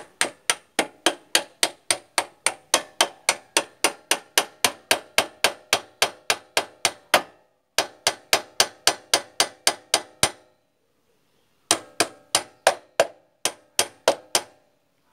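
Plastic hammer tapping a greased motorcycle swing arm pivot shaft back in through the swing arm bushes, in quick even blows of about three or four a second. There is a brief pause a little past seven seconds in and a longer one about ten seconds in before the tapping resumes.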